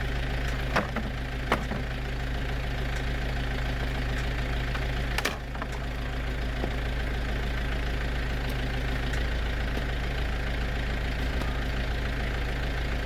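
A steady low mechanical hum runs throughout, with a few sharp metallic clanks from tools or parts: two short ones in the first couple of seconds and a louder one about five seconds in.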